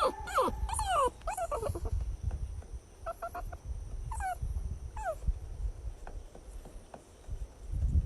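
A dog whining: a quick run of short, high cries that each fall in pitch, then a few more spaced out from about three to five seconds in, over a low rumble.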